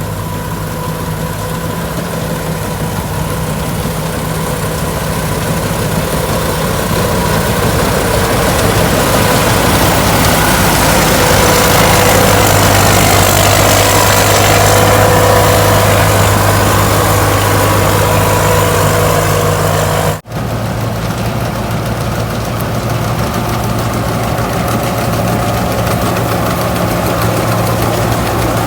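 Rice combine harvester's engine running steadily as it works the field, a constant drone that grows louder toward the middle, breaks off for an instant about two-thirds through, then carries on.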